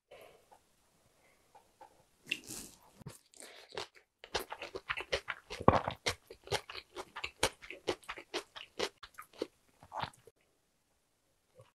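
Wooden spoon mixing rice with radish salad and fried eggs in a wooden bowl, close to the microphone. There are a few scattered clicks at first, then from about four seconds in a dense run of quick wet clicks and squishes as the bibimbap is stirred, stopping near the ten-second mark.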